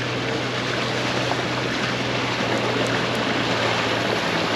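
Wind rushing steadily over the microphone, with a low steady hum underneath.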